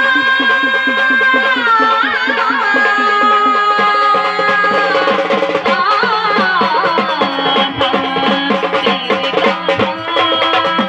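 Marathi folk gavlan music: a held, sometimes gliding melody over a quick hand-drum rhythm, the drum strokes growing denser about halfway through.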